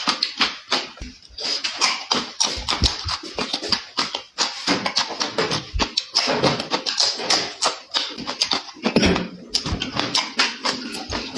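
Close-up eating sounds: a person chewing and smacking food with the mouth, a dense run of rapid clicks and crunches.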